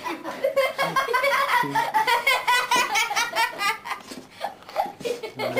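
Hearty human laughter: a long run of quick, repeated laughs that eases off after about three and a half seconds.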